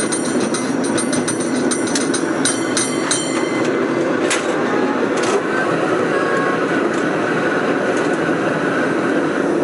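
San Francisco cable car running downhill on its rails, a steady rumble with a run of rapid clicks over the first three seconds or so, then a few single clicks.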